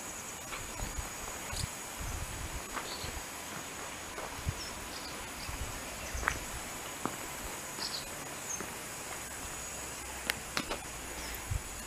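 Outdoor ambience: a steady high-pitched insect drone, with a few short high chirps and scattered light taps.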